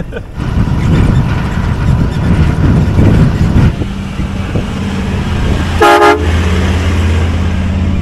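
Vehicle engine and tyres rumbling on a dirt track, heard from inside a pickup's cab. About six seconds in comes one short toot of a vehicle horn.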